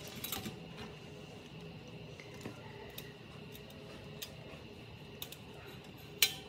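Scattered light metal clicks and clinks of a vintage Sony amplifier's sheet-metal chassis and front frame being handled and worked loose, with a short flurry about a quarter second in and one sharp clank near the end, the loudest sound.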